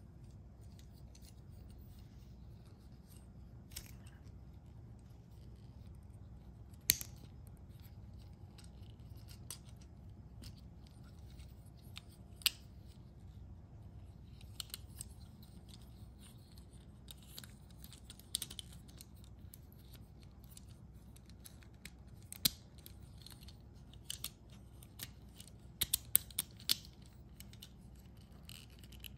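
Small plastic Transformers ambulance toy being folded from robot to car by hand: irregular sharp clicks and snaps of its joints and panels, with softer handling rattles between them and a cluster of clicks near the end.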